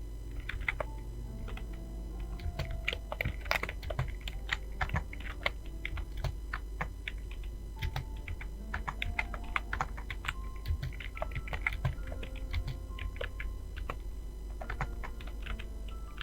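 Rapid typing on a computer keyboard: quick runs of key clicks with brief pauses between them.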